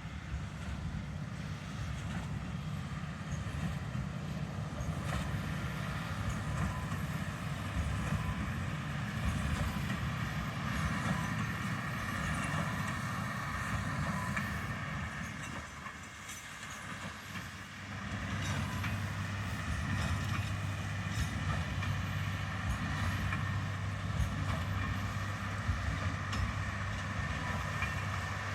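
Heavy harvest machinery running steadily: a low engine drone with a higher mechanical whine above it. It eases off briefly a little past halfway, then picks back up.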